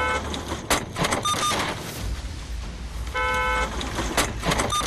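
A car horn blares, then a tractor's front-loader bucket crashes into an SUV with a sharp crunching impact, followed by short high beeps. The sequence of horn, crash and beeps is heard twice, about three and a half seconds apart.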